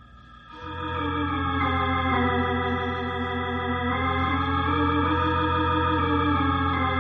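Organ music bridge between radio-drama scenes: sustained chords come in about half a second in and hold, with inner notes shifting slowly.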